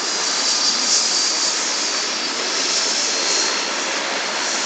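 Jet engines running at steady power, a loud roar with a high whine on top that swells and eases a little: the twin turbofans of a Learjet 60.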